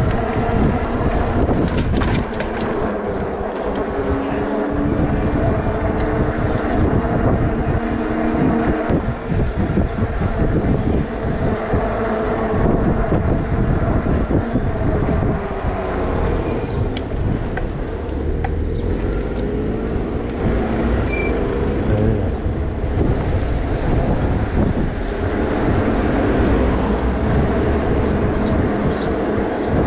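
Wind buffeting the microphone over the running noise of an electric bike being ridden, with a steady hum that drifts slightly in pitch.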